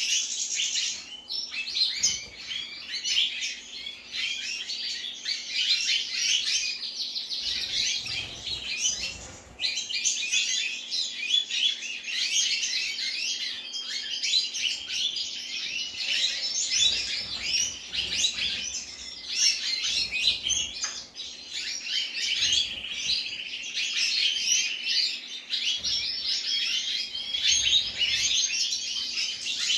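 Several European goldfinches of the large 'major' race chirping and twittering together. Their calls overlap in a busy, continuous chatter.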